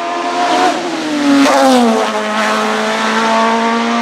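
Hillclimb racing prototype's engine at high revs passing close by. Its pitch drops sharply as it goes past, about a second and a half in, then holds steady as the car pulls away up the road.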